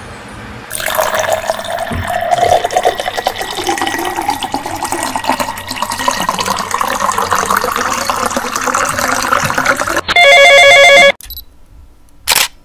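Brewed coffee poured from a pot into a cup, a steady splashing pour whose pitch slowly rises as the cup fills. About ten seconds in, the pour stops and a loud trilling ring, like a telephone, sounds for about a second.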